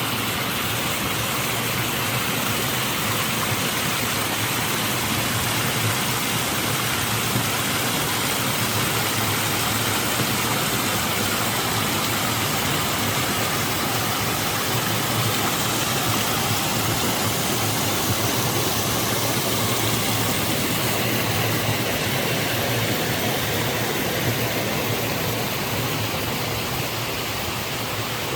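Mountain stream water rushing: a steady, even wash of noise.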